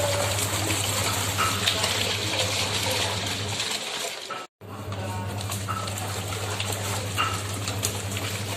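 AQUA QW-1050 XT washing machine running a wash: a steady motor hum under water sloshing and splashing in the tub. The sound drops out completely about four and a half seconds in, then the same hum and sloshing resume.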